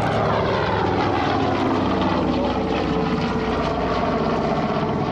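North American B-25 Mitchell's twin Wright R-2600 radial engines and propellers droning loudly in a low pass overhead. The pitch drops over the first couple of seconds as it goes by, then holds steady.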